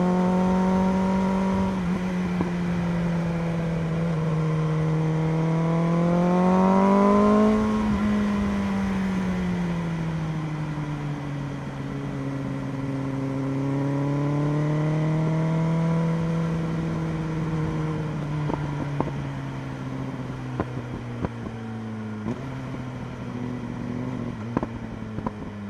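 BMW M1000RR's inline-four engine running under throttle while riding. Its pitch climbs to a peak about seven seconds in, then eases off, rises gently and falls again, dropping abruptly about three-quarters of the way through. The engine gets quieter toward the end, with small clicks and ticks over it.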